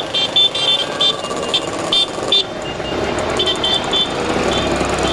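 Several motorcycle, moped and scooter engines running as a line of bikes rides past, with short, high-pitched beeps repeating several times a second through most of it. A deeper engine rumble builds from past halfway as a larger bike comes close.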